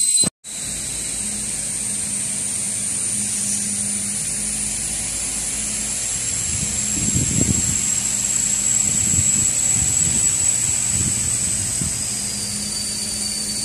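Steady machine drone in a shop, with a constant high-pitched whine over a low hum. There is a brief dropout just after the start, and a few dull low thuds come in the middle.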